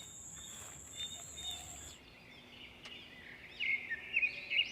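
A high, steady insect trill that cuts off about two seconds in, then a bird chirping several times in quick short calls in the second half.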